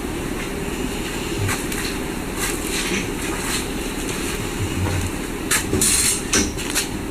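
Steady low rumble with a few short rustling noises, the loudest about six seconds in.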